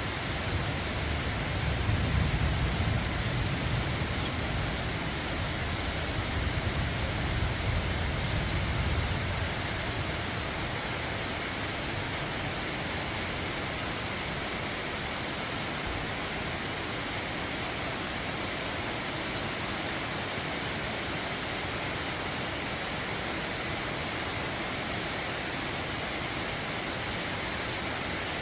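Rain falling steadily, an even hiss. A low rumble swells twice during the first ten seconds, then fades, leaving only the rain.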